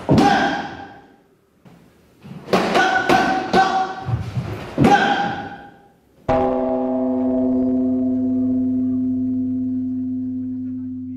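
Sharp hits of taekwondo kicks and strikes landing on a sparring partner wearing a padded chest protector. There is one hit at the start, then a quick run of about five a couple of seconds later, each with a short ring. About six seconds in, a single long gong-like tone starts and slowly fades.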